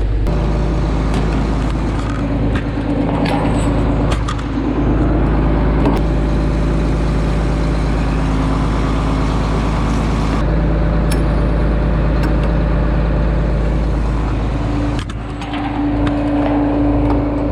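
A vehicle engine running steadily, with a few clicks and knocks over it.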